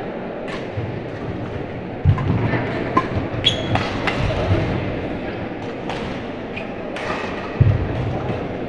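Badminton doubles rally: sharp racket hits on the shuttlecock and heavy thuds of players' feet on the court, with a short squeak about three and a half seconds in. It echoes in a large indoor hall, with voices in the background.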